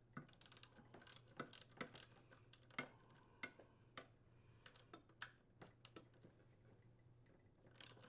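Ratchet wrench with an 8mm socket clicking in short, irregular runs as it unthreads the connecting rod cap screws of a small engine. The clicks are faint and mostly fall in the first six seconds.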